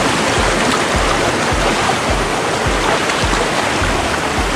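Water rushing over rocks in a mountain stream, a steady loud hiss, under background music with a regular low beat.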